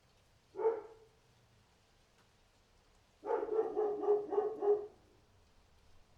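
Dog barking: a single bark about half a second in, then a quick run of about five or six barks starting about three seconds in.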